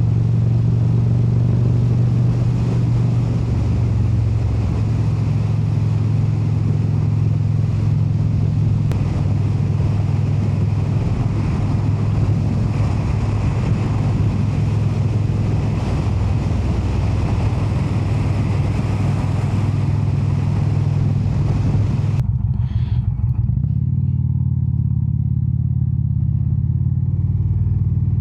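Indian cruiser motorcycle's V-twin engine running at a steady cruising speed, with wind and road noise over it. About 22 seconds in the wind hiss drops away suddenly, leaving mostly the low engine sound.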